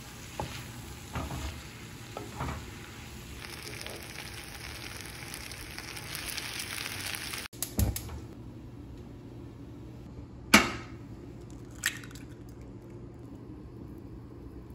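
Spaghetti and vegetables sizzling in a hot pan as they are stirred and tossed with a wooden spatula, with several knocks of the spatula in the first three seconds and the sizzle growing louder until it cuts off about halfway through. Then, over a quieter background, a sharp clack about ten seconds in, the loudest sound, and a lighter click a second later.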